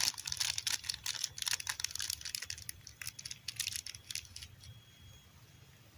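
Rapid clicking and rattling of small things being handled by hand, dying away about four and a half seconds in.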